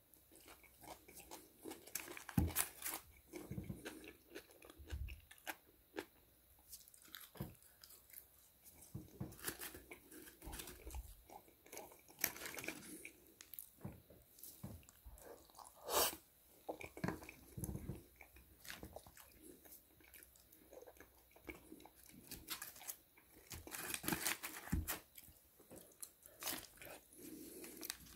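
Close-miked chewing and crunching of KFC fries: irregular, fairly quiet mouth sounds and short crunches as someone eats.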